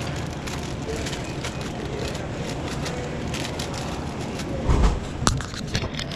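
Plastic snack packages crinkling and clicking as they are handled and loaded into a vending machine, over a steady low rumble. A louder thump comes near the five-second mark, followed by a sharp click.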